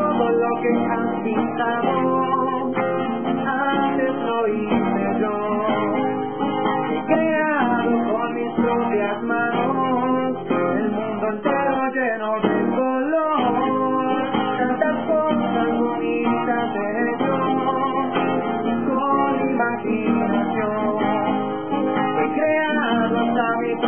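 Acoustic guitar strummed steadily as accompaniment, with a man singing over it.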